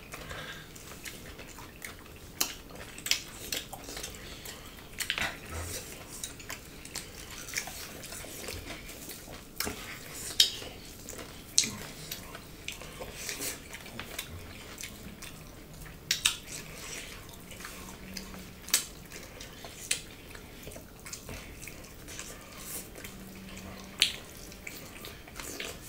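Eating at a table: irregular clicks and clinks of fingers and food against ceramic plates and dishes, with chewing and lip smacks.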